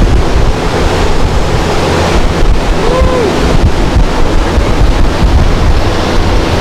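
Strong fan-driven wind from a hurricane simulator booth blasting over the microphone: a loud, steady rush of wind noise.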